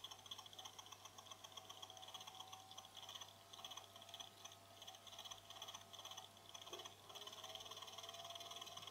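Cooler Master Seidon 120v liquid cooler's fan and pump running on very low voltage, a faint high electric whine with a rapid fine ticking. About seven seconds in it steps up a little louder as the voltage is turned up.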